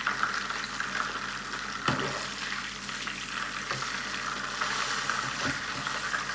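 Beef burger patty sizzling and crackling in hot fat in a frying pan, with a sharp knock about two seconds in.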